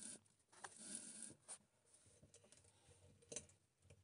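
Near silence with faint scraping and rubbing of a flexible drill shaft's bit against a screw head on a metal fan-motor casing, and one sharp click a little before the end.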